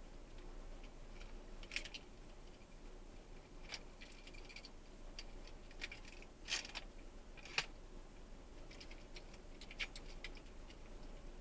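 Faint, irregular clicking and ticking, one sharp tick every second or two over a low hum. This is the unexplained rattle that the DOD SP1 dash cam keeps picking up in the car, which the owner cannot trace even though the camera is firmly mounted.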